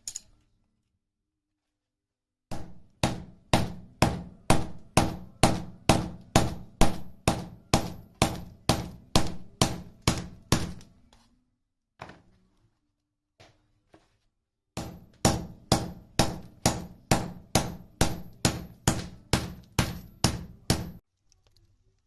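Hammer forging a heated steel file into a knife blade: steady blows about two a second, each with a high metallic ring, in two runs with a pause of a few seconds between them.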